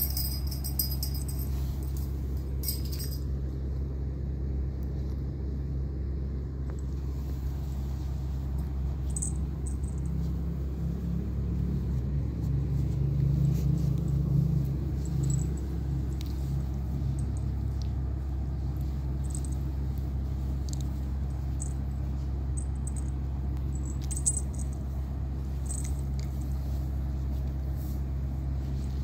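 Steady low hum with a brief swell about halfway through and a few faint clicks.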